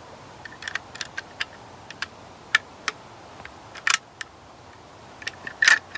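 About a dozen irregular sharp clicks and small knocks over a faint steady hiss. The two loudest are slightly longer, one near the middle and one near the end.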